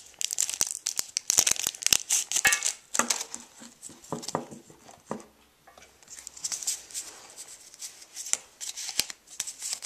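Pokémon booster pack's foil wrapper being torn open and crinkled by hand, a rough crackling that comes in two busy stretches with a quieter pause about halfway.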